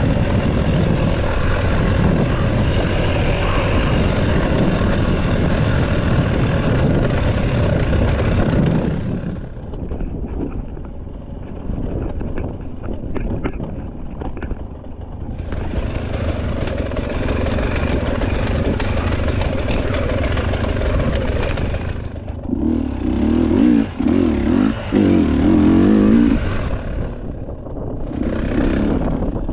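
Enduro dirt bike engine running. It drops to a much quieter low running for several seconds about a third of the way in, picks back up, then gives a few short blips of throttle near the end.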